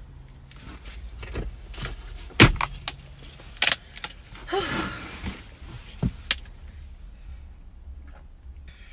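Close-up eating and food-handling sounds: a run of sharp clicks and crinkles from wrappers or packaging being handled, with a short breathy mouth sound about halfway through.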